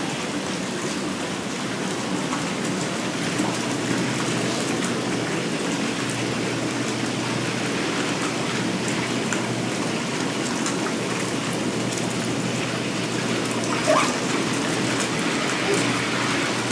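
Whirlpool bathtub jets running: a steady rush of churning, bubbling water over a low steady hum. Near the end a brief high-pitched voice cuts in.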